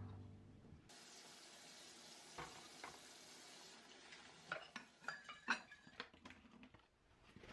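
Dishes and glassware clinking as they are handled at a wire dish rack, over a steady faint hiss. A few light clinks come early, then a quick run of sharper clinks about four and a half to six and a half seconds in.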